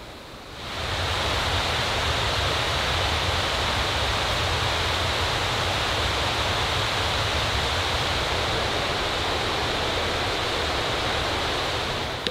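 Steady rushing of water from a mountain stream or waterfall, coming in abruptly just under a second in and easing off near the end.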